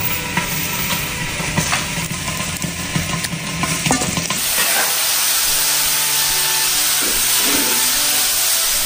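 Broth simmering in a wok, with a few clinks and knocks of a utensil as sliced pork is added and stirred in. About four and a half seconds in, a loud steady sizzle starts: green vegetables stir-frying in a hot wok.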